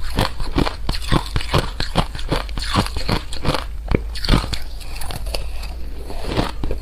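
Close-miked crunching of a hard, crunchy food being bitten and chewed in rapid sharp crunches, about three or four a second, that soften into denser chewing near the end.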